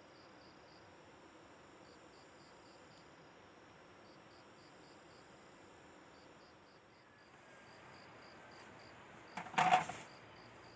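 Crickets and other night insects chirping in short repeated groups of high pulses, with a thin steady high-pitched whine over faint hiss. About a second before the end there is one brief loud noise.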